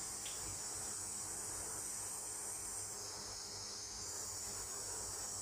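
Steady high-pitched hiss.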